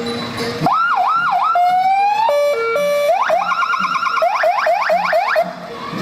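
Electronic siren cycling through its tones: a few rising and falling wails, some short steady beeps, then a run of quick rising whoops that stops about a second before the end.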